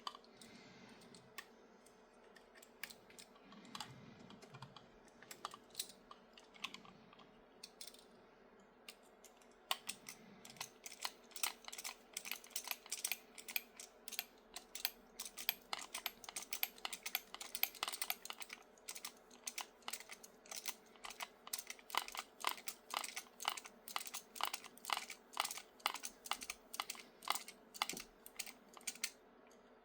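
Small M2 screw being driven with a hand screwdriver through a 3D-printed plastic suspension arm into the chassis: after a few scattered taps, a long run of light, quick clicks several times a second, over a faint steady hum.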